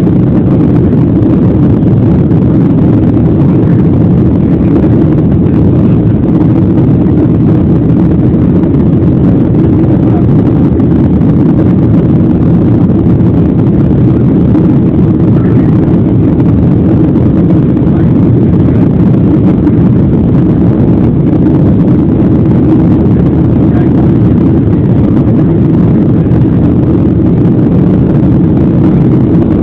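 Jet airliner's engines and rushing air heard from inside the passenger cabin: a steady, loud, low-pitched noise that holds even throughout.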